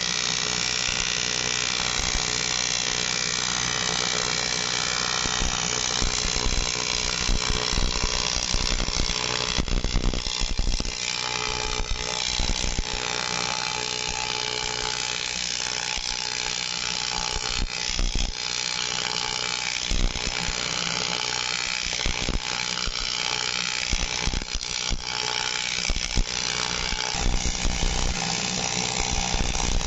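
AC TIG welding arc buzzing steadily while a seam is welded on an aluminium radiator, with a few brief dips where the arc changes.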